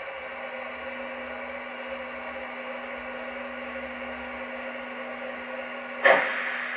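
LGB G-scale model steam locomotive running slowly along the track: a steady hum from its electric motor and gearing with wheel noise, and a steady low tone that comes in just after the start. Near the end, a sudden loud noisy burst that fades over about half a second.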